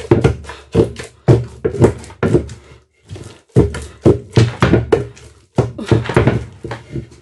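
Wooden pestle thudding into pounded yam in a wooden mortar in repeated dull strokes, about two to three a second, with a short break about three seconds in. The yam is being worked after a little water was added, to make it absorb the water and turn smooth and shiny.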